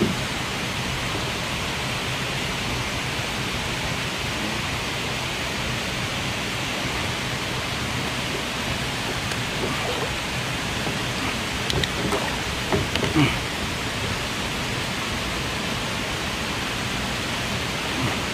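Steady rushing noise, with a few brief splashes and knocks around the middle as a hooked catfish thrashes in the water beside a kayak.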